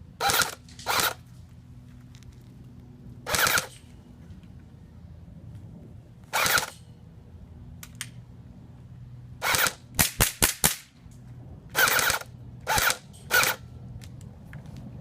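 Airsoft guns firing: about a dozen sharp single shots at uneven intervals, with a quick run of about five shots near the middle, over a low steady hum.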